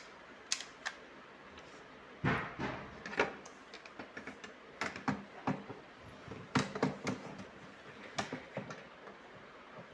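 Plastic clicks and knocks from handling a digital glass door lock and snapping its cover back onto the lock body, a string of separate knocks with the loudest about two seconds in.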